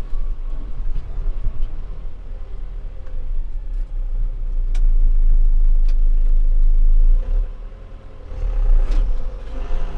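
John Deere 6320 tractor's four-cylinder diesel engine running under load as the tractor drives, with a heavy low rumble. It grows louder a few seconds in, eases off briefly near the end, then picks up again. The tractor is driving normally after its final-drive bearings were replaced.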